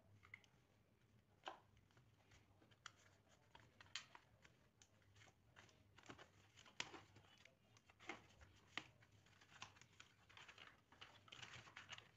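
Faint handling noise of a corrugated plastic sheet being folded and pressed by hand while hot-glued: scattered light clicks, taps and scratchy rustles, growing busier after the first few seconds and densest near the end, over a faint low hum.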